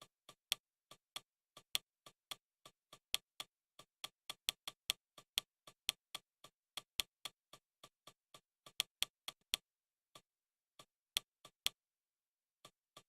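Short, sharp clicks, one for each step while scrolling down a list on a Fire TV Stick, coming about three a second and pausing twice near the end.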